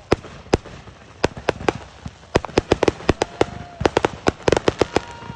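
Fireworks going off: a rapid, irregular string of sharp bangs and crackling reports, thickening into a dense barrage after about two seconds. Steady whistling tones sound under the bangs in the second half.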